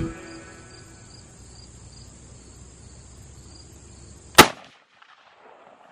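A single shot from a Swiss K-31 straight-pull rifle (7.5×55mm Swiss), one sharp loud crack about four seconds in. Before it, faint insects chirp in a steady rhythm.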